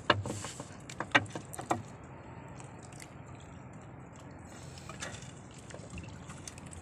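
A fishing net being hauled in by hand over the side of a wooden outrigger boat, with fish caught in it: three sharp knocks in the first two seconds as net and fish hit the hull, then only faint handling ticks over a low steady background noise.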